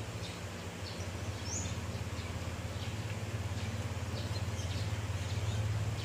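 A steady low background hum that grows slightly louder, with a few faint bird chirps.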